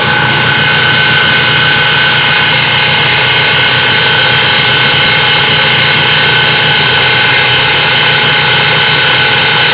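Angle-grinder electric outboard motor running steadily at half throttle, a loud unchanging whine, drawing about 80 amps through its power inverter.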